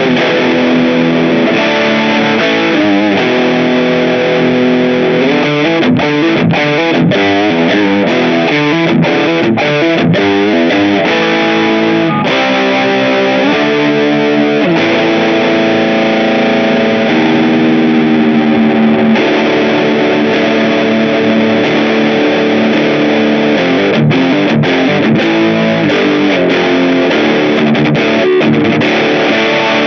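Grote 335-style semi-hollow electric guitar with P90 pickups played with a distorted tone. Quick changing note runs give way to held, ringing chords partway through.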